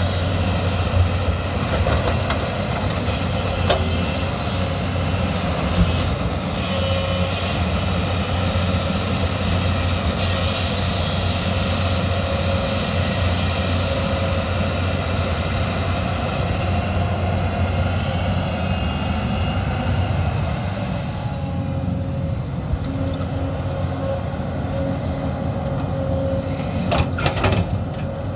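Diesel engine of a heavy earthmoving machine running steadily, with a few sharp metallic knocks: one about a second in, a couple more in the first six seconds, and two close together near the end.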